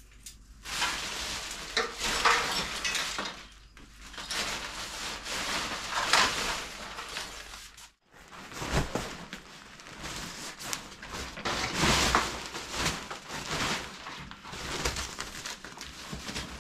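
Rustling and crinkling of a synthetic motorcycle cover as it is pulled and gathered over a bike, in uneven bursts. There is a sudden break about eight seconds in, then more rustling with a few sharp knocks.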